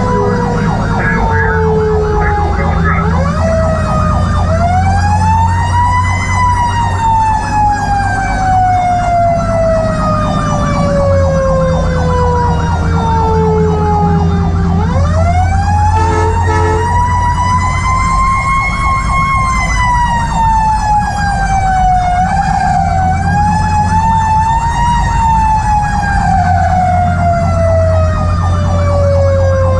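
Fire engine's Federal Q mechanical siren being wound up and left to coast down, twice: each time it climbs to its peak within a couple of seconds, then its wail slowly falls for about nine seconds before being wound up again. The truck's engine drones steadily underneath.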